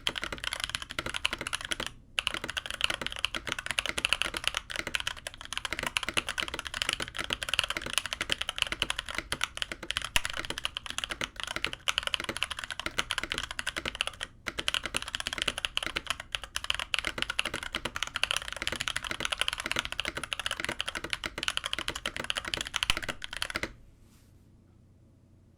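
Fast, continuous typing on a KBD75v2 custom mechanical keyboard with lubed Holy Panda tactile switches, an aluminum plate and CRP keycaps. The typing breaks off briefly twice and then stops near the end.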